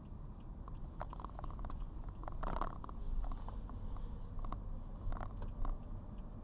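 Car cabin while driving on a rainy day: a steady low road and engine rumble, with scattered light taps and a faint, regular ticking about three times a second.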